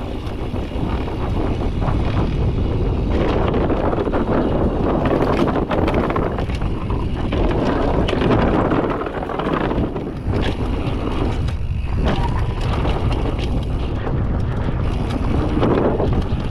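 Wind buffeting an action camera's microphone on a fast downhill mountain bike run, with the rumble of knobby tyres and the rattle of the bike over dirt and a wooden plank berm.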